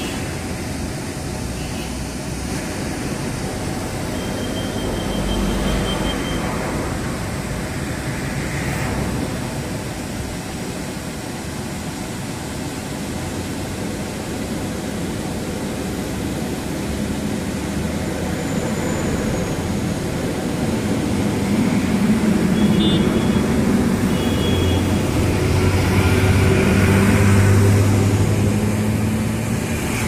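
Steady rushing roar of a waterfall, with the hum of a motor vehicle's engine swelling in and growing loudest in the last third.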